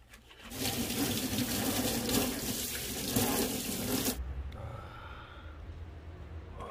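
Tap water running hard into a stainless steel sink, starting about half a second in and cutting off abruptly after about four seconds, leaving only a faint low hum.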